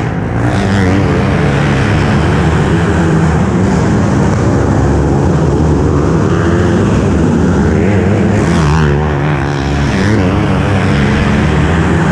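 Several outlaw kart engines running hard on a dirt oval, their pitch rising and falling as the karts lap through the turns. The sound rings off the walls and roof of the covered arena.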